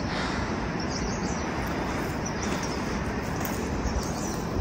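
Steady rushing outdoor noise with a few faint, brief bird chirps.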